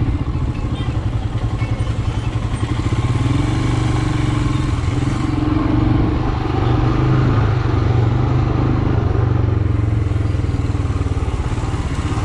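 Royal Enfield Himalayan's 411 cc single-cylinder engine running steadily at low speed with an even pulsing beat, the bike rolling slowly over rough dirt. Partway through, a second, deeper engine tone joins in for several seconds and then fades.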